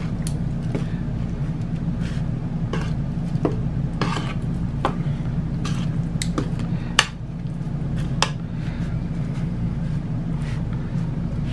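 Metal tongs clicking and scraping against a metal sheet pan as raw chicken thighs are turned over, in scattered short knocks, the sharpest about seven and eight seconds in. A steady low hum runs underneath.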